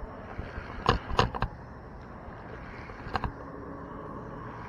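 A hooked bass being reeled in to the bank: three short, sharp sounds close together about a second in and one more about three seconds in, over a steady low hiss.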